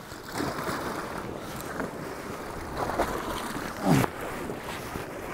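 A collapsible rope bucket dropped into the sea to scoop water, splashing and sloshing against the rocks as it is hauled back up. A short falling voice sound comes about four seconds in.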